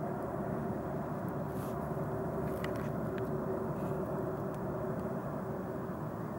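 Steady low drone of a distant engine, with a faint steady hum in it that fades about five seconds in.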